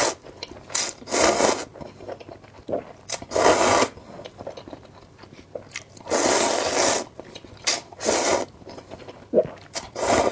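A person eating instant noodles: a series of long, noisy slurps, several lasting most of a second, with quieter chewing between.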